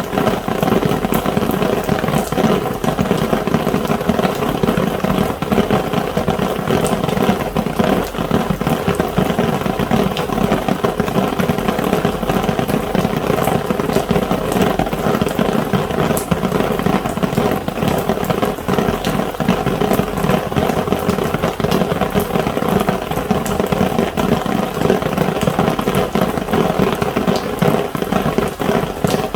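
Rain falling steadily on an umbrella: a dense, even patter of drops striking the canopy, at a constant level throughout.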